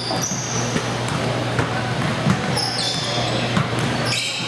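Basketball game sounds on a gym's hardwood court: short, high sneaker squeaks several times and a ball bouncing, over low crowd murmur.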